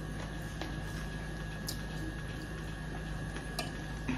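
Quiet eating by hand over a steady low room hum: a few faint soft clicks and smacks as fingers work rice and curry on steel plates, and mouths chew.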